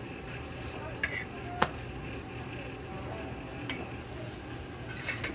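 Hotteok sizzling as they fry in oil on a flat steel griddle. A sharp metal clack, the loudest sound, comes about a second and a half in, after a lighter click just before it, and a few lighter clinks come near the end: the metal presser and spatula striking the griddle.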